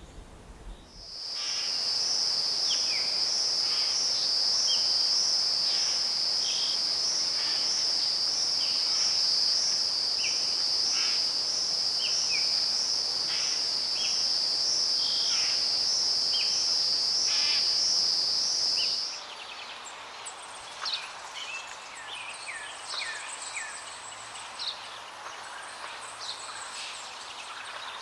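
Birds giving short, quick, falling chirps over a loud, steady, high-pitched insect-like trill. The trill cuts off abruptly about two-thirds of the way through, leaving scattered bird chirps and whistles.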